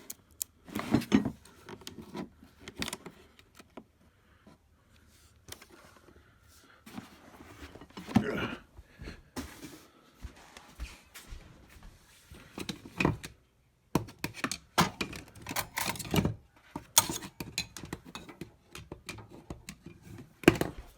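Metal tool-kit parts and their plastic carrying case being handled: irregular clicks, knocks and light clatter, with a few louder knocks.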